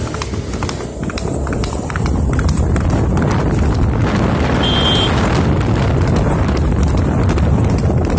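A horse galloping on a paved road, hooves clattering in a fast, uneven patter over a steady low rumble that grows louder about two seconds in. A short high beep sounds about halfway through.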